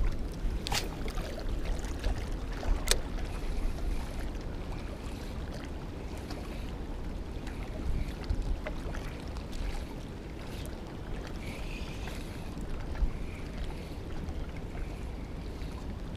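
Wind buffeting the microphone as a steady low rumble, with a sharp click about a second in and another about three seconds in.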